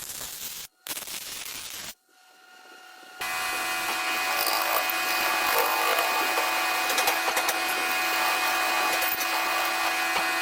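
A power tool or machine running steadily with a constant whine. It starts abruptly about three seconds in, after a couple of sudden cuts in the sound.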